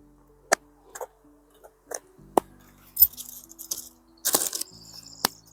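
Background music with held notes, over irregular sharp clicks and taps of a small plastic box and lid being handled and worked, and a brief rustling burst near the end.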